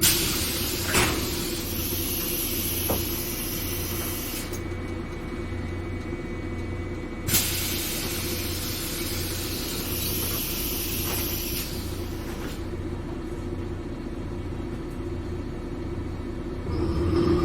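Bus engine running with a low, pulsing rumble, interrupted twice by long hisses of released compressed air from the bus's pneumatic system, each several seconds long. Near the end the engine grows louder.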